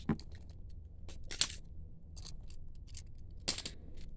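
Light clicks and taps of a diecast stock car model being picked up and handled, with two louder clacks, about a second and a half in and about three and a half seconds in.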